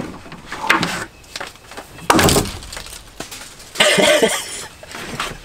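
A sudden crash about two seconds in, then a short shout about four seconds in.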